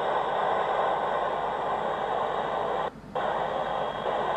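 Static hiss from the space station's ham radio receiver, steady and even with no voices, cutting out briefly about three seconds in.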